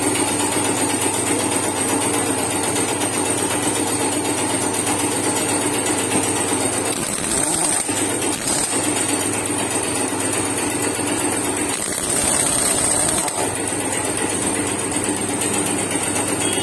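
Pneumatic impact wrench hammering on the wheel nuts of a tractor trailer wheel, a fast continuous rattle over a steady mechanical drone, running harder twice, about seven and twelve seconds in.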